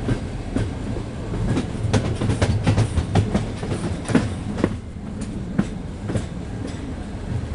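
Passenger train's wheels clattering over rail joints at speed, heard aboard: a steady low rumble with a dense, irregular run of sharp knocks through the middle seconds. The track is in poor technical condition, which the knocking reflects.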